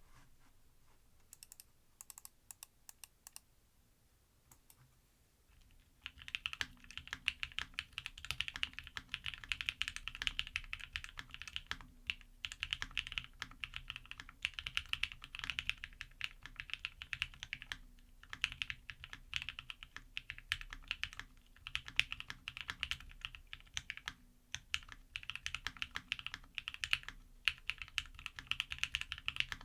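Custom mechanical keyboard being typed on. A few scattered keystrokes come first, then from about six seconds in, fast continuous typing.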